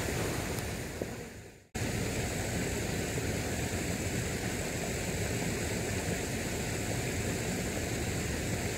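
Steady rushing noise of a swollen, flowing river. The sound fades out to silence just under two seconds in, then snaps back.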